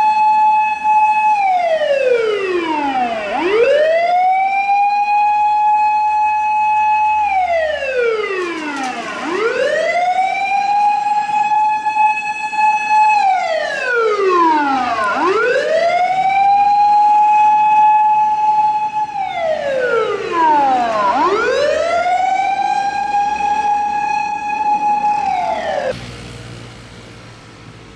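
Emergency vehicle siren wailing in a slow cycle: it holds a high tone for a couple of seconds, slides down, then sweeps back up, about every six seconds. It cuts off suddenly about two seconds before the end.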